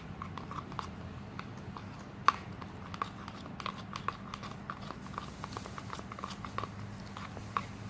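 Spoon stirring a thick, sticky paint mixture in a mixing bowl: irregular small clicks and sticky smacks, several a second, with one sharper tap about two seconds in, over a steady low hum.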